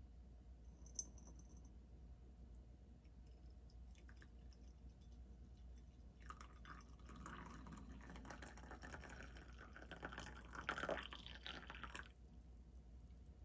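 Tea poured from a glass teapot into a ceramic cup: a light splashing trickle that starts about halfway through, grows fuller, then stops shortly before the end. A small click comes about a second in.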